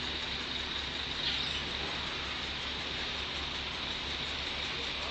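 Heavy truck's diesel engine idling as a steady low rumble, under a steady high hiss.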